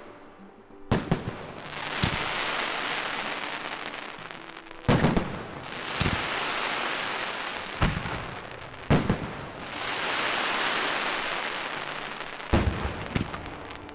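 Fireworks going off: about five sharp bangs, each followed by a long crackling hiss as the burst sparkles out.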